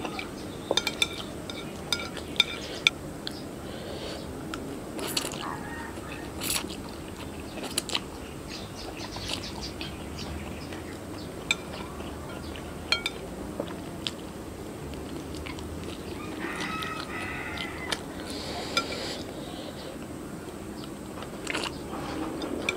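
Eating sounds from a plate of Samyang instant noodles: chopsticks clicking and scraping on a ceramic plate, with noodles slurped and chewed. The sharpest taps come in the first few seconds, over a steady low background hum.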